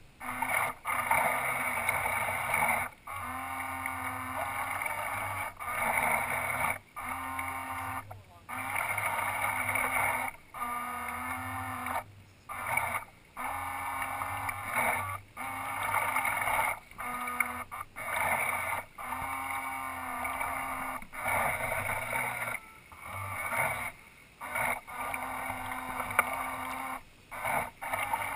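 A model boat's motors and propellers whining from on board, running in short bursts of one to three seconds that cut off and start again, as the throttle is worked on and off.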